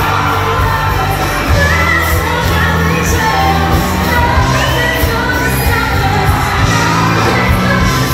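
Live pop-rock band with a female lead singer, amplified through the hall's sound system and recorded from among the audience, with crowd shouting and cheering mixed in.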